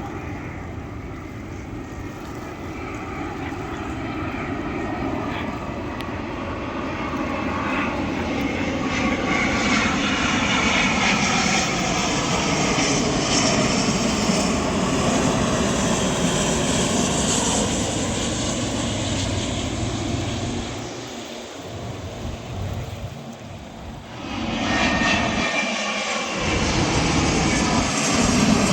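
Jet airliner engines passing low overhead, the roar gliding in pitch as the aircraft goes by. The sound builds over the first ten seconds or so, eases off about twenty seconds in, then swells again near the end.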